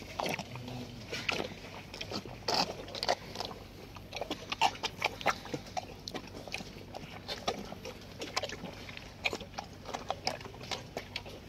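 Calf slurping and sucking milk from a shallow metal pan, a quick irregular run of wet smacks and gulps, a few each second.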